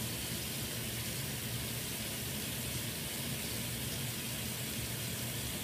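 Bathroom sink faucet running steadily into the basin.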